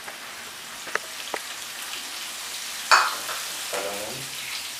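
Chopped onions and leek sizzling in hot vegetable oil in a frying pan. There are two small clicks about a second in, and a sharp, louder hiss about three seconds in.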